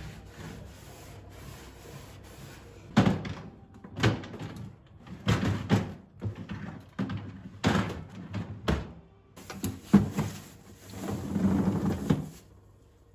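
A series of knocks and clatters from household things being handled, like cupboard doors or drawers opening and closing, with a longer rustling, scraping stretch near the end.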